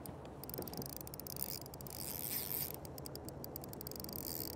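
Fishing reel clicking in fast runs of fine, high ticks with a short break partway through, as a hooked fish is played on a line that may be wrapped around a pylon.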